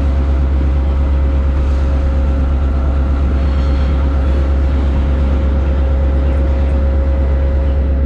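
A moving train running steadily: a deep, even rumble with a thin steady whine above it.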